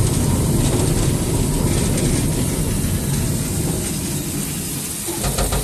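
Cab ride on a 1925 steam shunting locomotive: steady rumble of the locomotive and its wheels running over the track, with some clickety-clack. It dies down a little toward the end.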